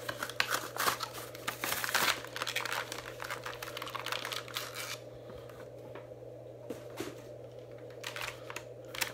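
Plastic packaging crinkling and crackling as an action figure is worked out of its box, busy for about five seconds and then dropping to a few scattered crackles.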